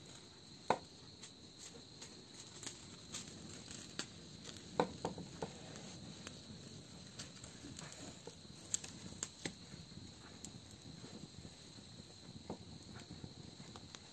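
Small wood fire crackling, with scattered sharp pops, as a plucked bird is singed over the flames. A steady high insect trill runs behind it.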